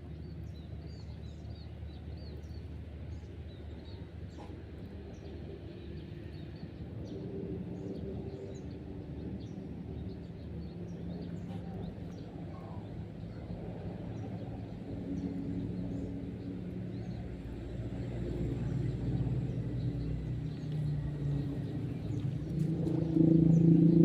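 Outdoor ambience: a steady low rumble with small birds chirping, and a louder low hum building over the last few seconds.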